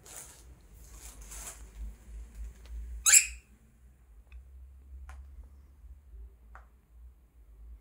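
Cockatiel giving one loud, sharp chirp that sweeps quickly downward in pitch about three seconds in, followed by three short, faint chirps. Faint rustling comes before the loud call.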